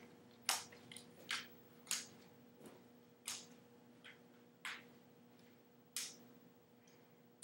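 Metal underarm crutches clicking as they are planted with each swing-through step, about six sharp clicks irregularly spaced a second or so apart. A faint steady hum runs underneath.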